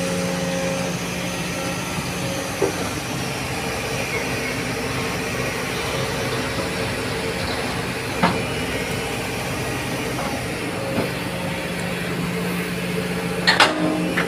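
Sumitomo excavator's diesel engine running steadily under hydraulic load as it swings and dumps soil. A few single knocks come through, and a quick cluster of sharp metal clanks comes near the end as the bucket goes back to the ground.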